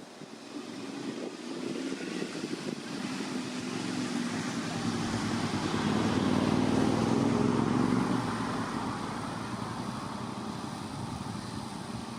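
A road vehicle passes: its engine and tyre noise grow, are loudest about six to eight seconds in, then fade.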